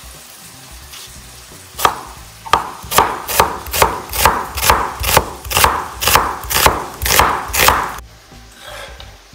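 Knife slicing onion on a cutting board: about a dozen sharp, even chops, roughly two a second, stopping abruptly near the end.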